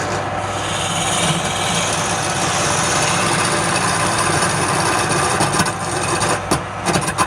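Wood lathe running steadily with a turning tool cutting into the spinning wood, a scraping hiss over the motor's hum. A few sharp clicks near the end.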